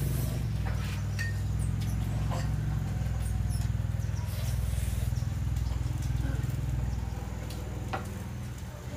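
A motor running steadily with a low hum, easing slightly near the end, with faint scattered squeaks and clicks over it.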